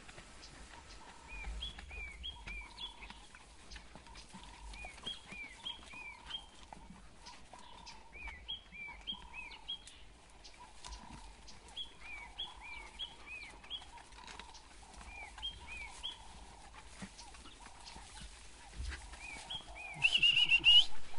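Birds calling in the bush: phrases of three or four short high chirping notes repeating every second or two, over lower soft calls. Near the end comes a louder steady human whistle, a contact whistle used to let African wild dogs know a familiar person is on foot nearby and keep them calm.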